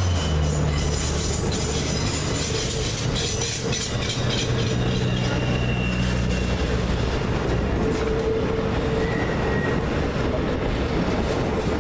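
Freight cars of a Norfolk Southern intermodal train carrying truck trailers roll past on curved track, with a steady rumble of wheels on rail. Wheel flanges give off high-pitched squeals that come and go.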